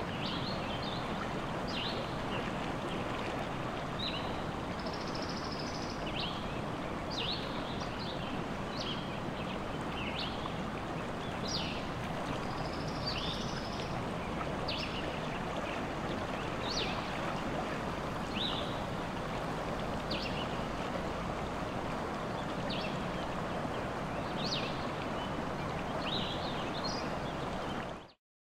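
Forest ambience: a steady rushing background, with short high bird chirps coming about once a second. It cuts off near the end.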